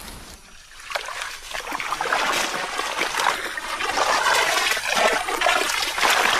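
A person's legs wading through shallow, muddy water full of floating plants: continuous splashing and sloshing that starts about a second in.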